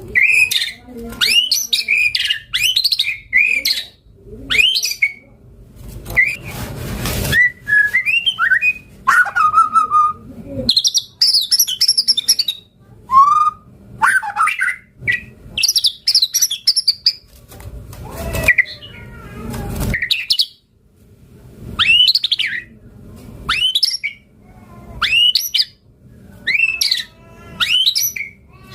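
White-rumped shama singing a long, varied song: rapid phrases of whistled and sweeping notes, with a few short harsh rasping notes mixed in.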